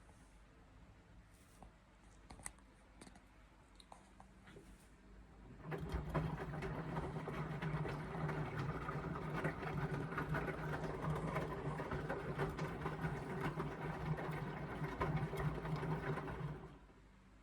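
Indesit washing machine's drum motor turning the loaded drum during the wash. After a quiet pause with a few faint clicks, the motor starts about six seconds in, runs steadily with a low hum for about ten seconds, and stops near the end.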